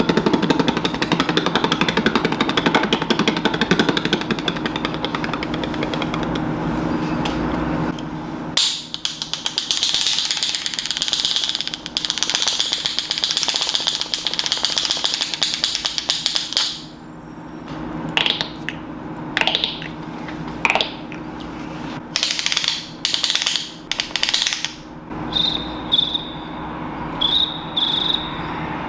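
A series of different sounds, real ones and beatboxed mouth imitations of them. First a rattling, jackhammer-like sound over a low hum for about eight seconds, then a steady hiss for about eight seconds, then a string of short sharp bursts with a few brief high beeps near the end.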